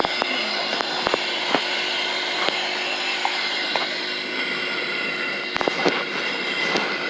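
Steady mechanical hiss and hum, with scattered light clicks and knocks.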